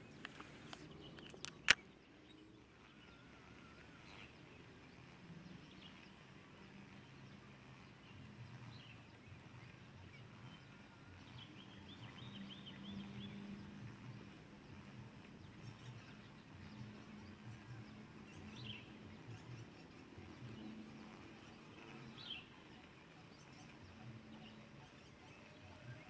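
Quiet outdoor ambience with a few short, faint bird calls scattered through it. One sharp click about two seconds in.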